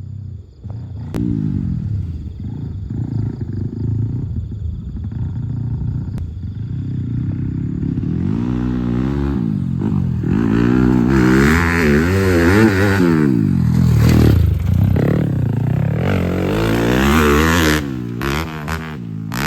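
A dirt bike's single-cylinder engine running at a low, uneven idle, then revved hard again and again from about halfway, its pitch rising and falling rapidly with each blip of the throttle. A few sharp clicks near the end.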